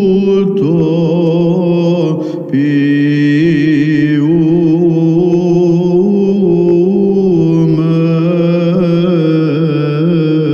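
Orthodox church chant: male voices singing a slow, ornamented melody in long held notes over a steady low held note.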